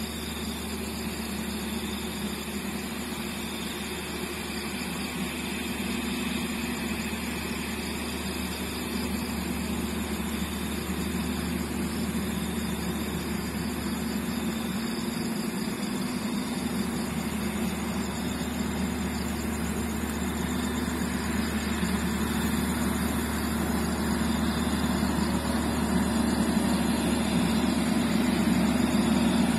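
Diesel engine of a CC206 diesel-electric locomotive running steadily at low power while shunting a train set, growing gradually louder.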